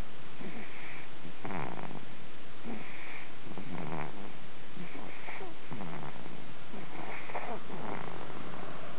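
An animal breathing noisily in a steady rhythm, one breath cycle about every two seconds, each with a hiss and a lower falling rasp.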